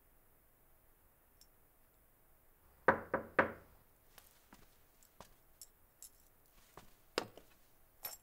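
Three quick knocks on a wooden door about three seconds in. After them come faint scattered footsteps and light taps and clicks of things being handled at a wooden cabinet.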